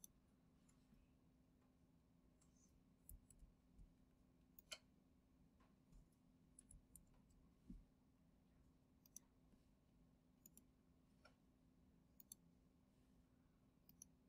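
Near silence broken by faint, scattered computer mouse clicks, about a dozen spread irregularly over the stretch, above a faint steady low hum.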